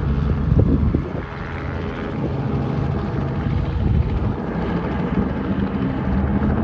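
A large engine running steadily, a low pulsing hum, with a couple of short knocks about half a second in.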